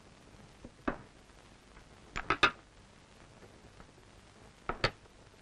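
Short sharp knocks and clacks of objects being handled on a table: one about a second in, a quick run of three about two seconds in, and two more near the end, over a faint hiss.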